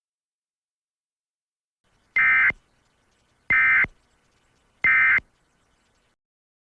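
Three short, identical bursts of Emergency Alert System end-of-message data tones, about one and a third seconds apart. They mark the end of the alert broadcast.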